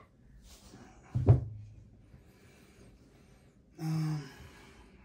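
A single loud thump about a second in, its low end ringing briefly, then a short hum-like sound with a steady pitch near four seconds.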